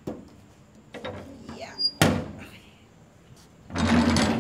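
Barred metal gate being unlatched and opened: a click, a sharp metallic bang about halfway through that rings away, then a loud scraping rattle near the end.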